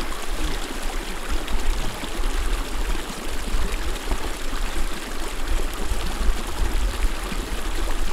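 Small meadow creek flowing steadily, with a low rumble underneath.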